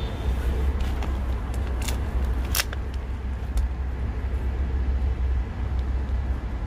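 Steady low rumble of street traffic, with a few sharp clicks and crackles of a plastic water bottle being handled and opened, about one and a half to three and a half seconds in.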